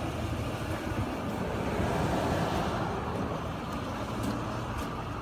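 A vehicle engine idling steadily, with a few light knocks in the second half.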